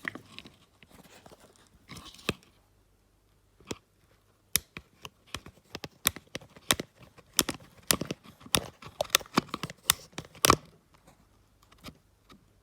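Irregular clicks, ticks and scrapes of small plastic and metal parts being worked by hand as a small tube is pulled out of a Mercedes W203 boot-handle lock-cylinder unit. A few scattered clicks come first, then a dense run of clicks from about a third of the way in, with the sharpest one near the end.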